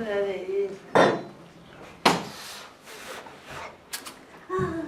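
Two sharp rasping hisses about a second apart, from a red-hot knife blade being licked in a Lisu fire-faith ritual, with short vocal sounds at the start and near the end.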